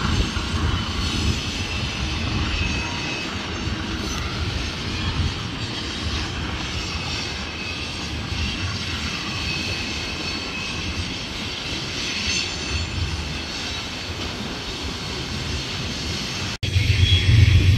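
Freight train of hopper cars rolling on a far track: a steady low rumble of wheels on rail, with faint high squealing tones now and then. Near the end the sound cuts off suddenly, giving way to a louder low rumble and a brief voice.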